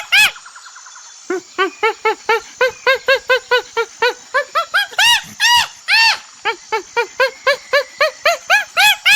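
An animal calling in a fast run of short, pitched, rising-and-falling calls, about four a second. There is a pause of about a second near the start, and a few longer, higher calls come about five to six seconds in.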